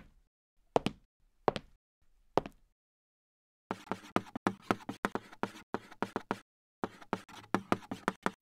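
Footstep sound effects, four steps under a second apart, then from about four seconds in a quick run of writing sounds, short taps and scratches about five a second with one brief pause, as of handwriting on a board.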